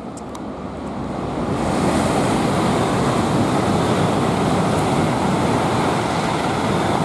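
Pair of Eurostar Class 374 trains passing through the station at speed: a loud rushing noise that builds over the first two seconds, then holds steady.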